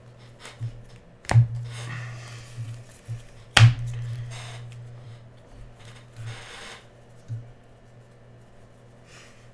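A stack of trading cards being handled: two sharp taps about a second and three and a half seconds in, each followed by a short rustle of cards, with softer rustling later, over a steady low hum.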